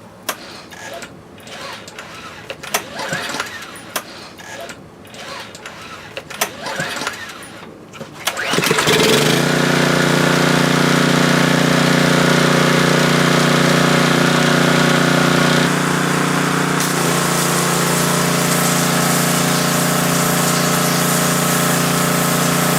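Ryobi 2700 gas pressure washer: a few scattered knocks and handling sounds, then about eight seconds in the engine starts and runs steadily under load with a high spray hiss. The pump's pressure adjustment is screwed down far, set to about the maximum pressure.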